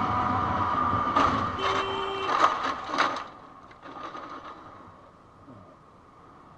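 Scooter crash in traffic: steady engine and road noise, then about a second in a run of loud clattering knocks and scrapes over some two seconds as the scooter goes down and hits the road. A few lighter knocks follow, and then only quieter traffic noise.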